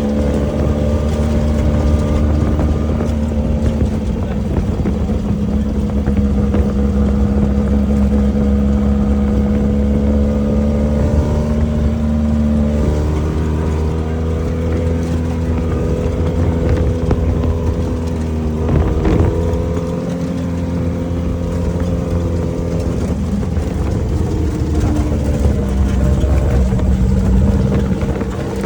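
Off-road race vehicle's engine running steadily throughout, its pitch stepping down about 13 seconds in. A brief knock is heard near 19 seconds.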